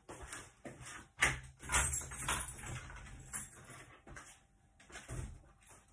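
Knocks and clatters from kitchen cupboards being opened and searched, with things moved about inside.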